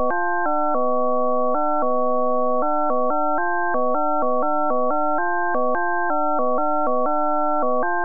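Computer-generated sonification of a year's calendar made in SuperCollider: a stream of short synthesized blips, one per day, each blip's pitch set by how many events that day held, higher for busier days. The tones step up and down several times a second with a click at each change, and hold steady in places where several days in a row had the same number of events.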